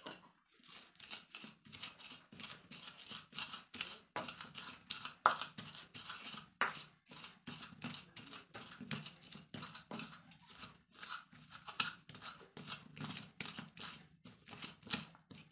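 Pestle crushing and grinding sliced shallots in a cobek mortar, with repeated short crunching, scraping strokes a few times a second as the shallots are worked into chili paste.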